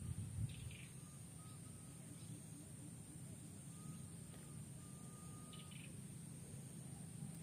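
Quiet outdoor ambience: a low steady hum with faint, distant bird calls, including short high chirps about half a second in and again near the end, and a few thin, steady whistled notes.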